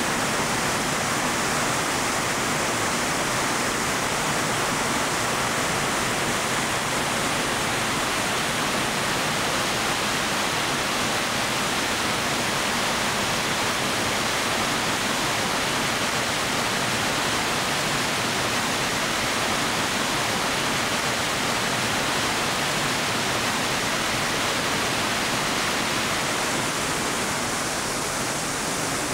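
Brown floodwater pouring over a wide river cascade of rock ledges, the river in spate after heavy rain: a steady, unbroken rush of water.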